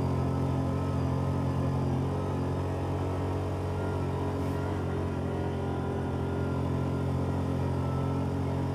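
Yamaha Viking side-by-side's single-cylinder engine running at a steady speed as the machine drives along a snowy trail, heard from inside the open cab.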